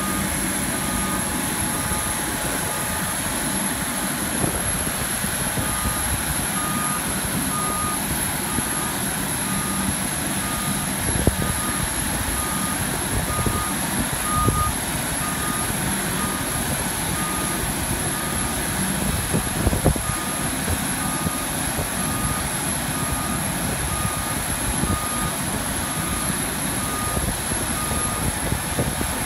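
Mototok electric towbarless aircraft tug's warning beeper, a steady high beep repeating about once a second, over a constant rushing background. A few low knocks stand out along the way.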